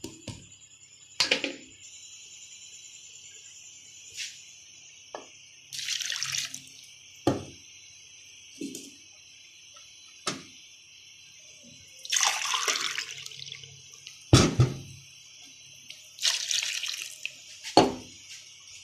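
Water poured into a cooking pot in three short splashing pours, with several sharp knocks of steel vessels in between.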